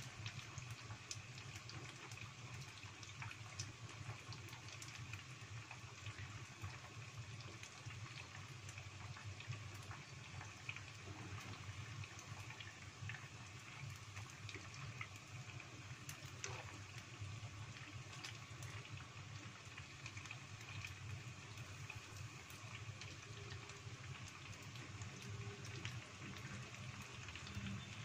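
Battered tofu sempol on skewers deep-frying in a small pot of hot oil: a steady sizzle with fine, continuous crackling as the pieces fry toward golden.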